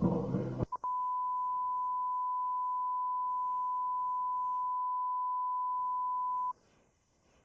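Music with drums cuts off abruptly less than a second in. A steady broadcast test tone follows at one fixed pitch for about six seconds, then stops suddenly.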